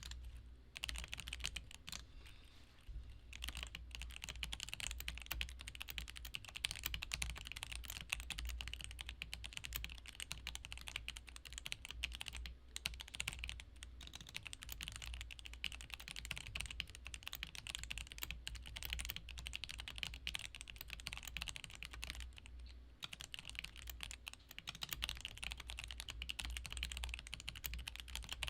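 Typing on a stock, unlubed GK61 60% mechanical keyboard fitted with Gateron optical Black linear switches: a fast, continuous run of keystroke clacks, sparser for the first few seconds and then steady.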